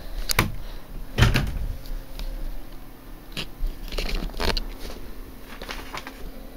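Handling noise: a string of sharp knocks and rustles, the loudest a thump about a second in, as the handheld camera is moved about and a sheet of notebook paper is picked up. A faint steady hum runs underneath.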